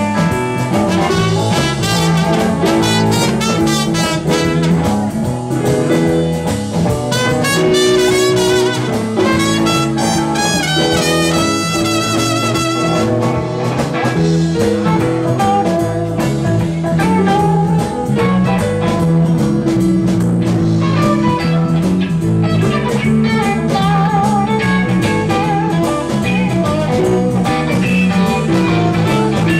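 Live blues band with drums and bass. A trumpet solo ends about halfway through, and an electric guitar on a semi-hollow body takes the lead near the end.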